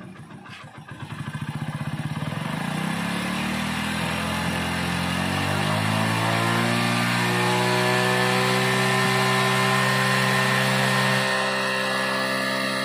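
Hero Splendor's single-cylinder four-stroke engine, just started, its revs climbing over the first several seconds and then running steadily, easing off a little near the end. It is held running to check the charging output of the regulator-rectifier (RR unit) at the battery.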